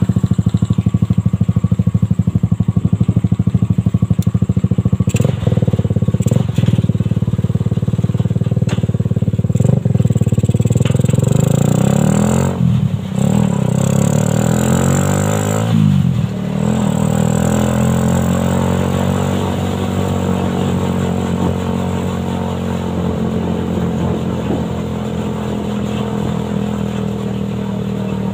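Suzuki Satria FU 150cc single-cylinder four-stroke motorcycle engine running in a homemade buggy, with a few sharp knocks in the first ten seconds. Its revs fall and rise several times around the middle, then it settles to a steady pace.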